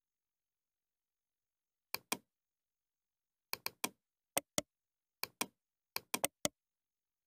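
Computer mouse clicks and keyboard key presses: about a dozen sharp clicks in quick pairs and small clusters, starting about two seconds in, with dead silence between them.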